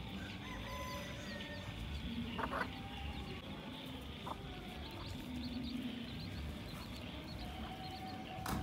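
Mother hen clucking low a few times while foraging with her chicks, over steady outdoor background noise.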